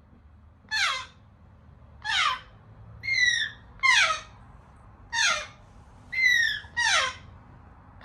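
African grey parrot chicks giving repeated begging calls, about seven in all, each a short harsh call that mostly slides steeply down in pitch, a couple held nearly level.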